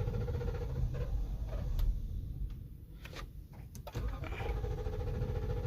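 Lexus LX 570's 5.7-litre V8 cranking on the starter without catching, a fast even chugging. The cranking stops for about a second and a half a little past two seconds in, with a few clicks, then starts again. The engine cranks but won't start, a fault the mechanic traces to a misplaced EFI relay.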